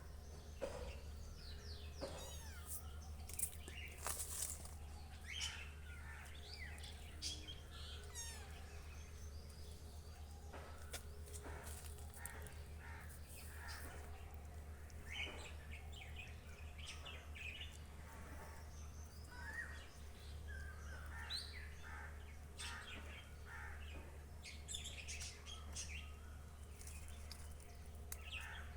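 Birds chirping and calling on and off, with a steady low hum underneath.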